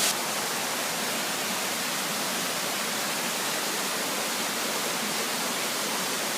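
Rushing water from a mountain stream or falls: a steady, even hiss with little deep rumble.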